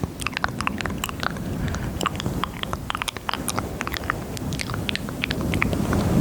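ASMR mouth sounds: many quick wet clicks and smacks of lips and tongue, close to a microphone at maximum sensitivity, over a steady low rustling.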